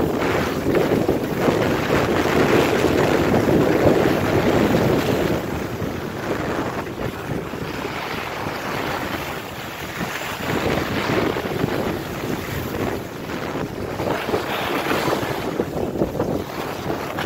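Wind rushing over the microphone while skiing downhill, mixed with the hiss and scrape of skis on packed snow. It is loudest over the first five seconds, then rises and falls with the turns.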